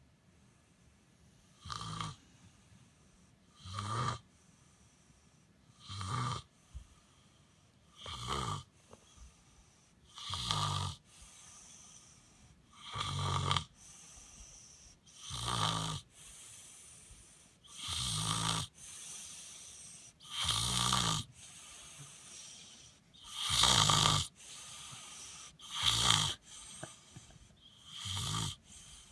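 Regular snoring in a sleeping breathing rhythm, about a dozen snores one every two seconds or so, each a low rasp with a breathy hiss. The snores grow longer and louder in the second half.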